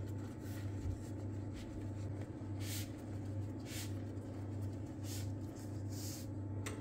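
Thin baklava phyllo sheets rustling and crinkling as they are rolled tightly by hand, with a few brief scratchy rustles over a steady low hum.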